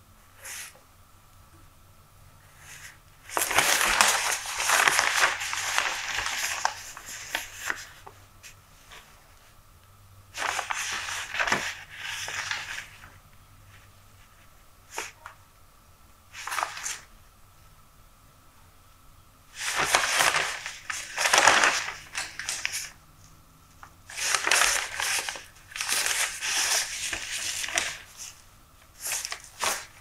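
Newspaper pages rustling and crinkling as they are turned and handled, in four long bursts of several seconds with quieter gaps between, and a few brief crackles in the gaps.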